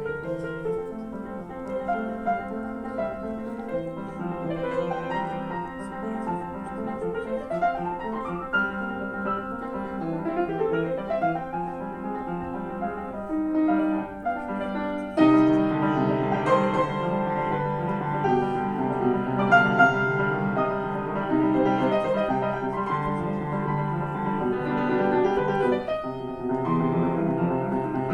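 Solo piano playing a classical piece, with rising arpeggio runs in the first half and a louder, fuller passage from about halfway.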